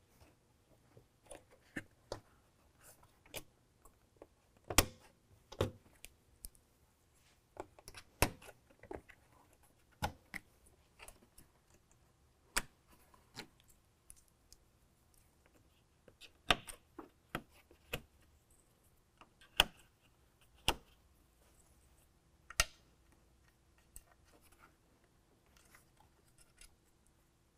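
Plastic push-pin fasteners snapping into a Ford F-150's plastic radiator shroud as the panel is pressed into place: an irregular series of sharp clicks and snaps, a few seconds apart.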